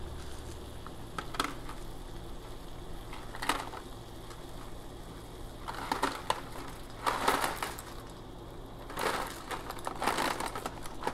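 Cardboard box of mac and cheese being torn open and handled, crackling and rustling in several short, irregular bursts.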